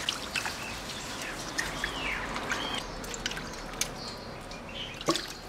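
Raw goose meat being rubbed and turned by hand in a steel basin of water: soft wet splashes and small clicks against the bowl, with a few faint chirps in the background.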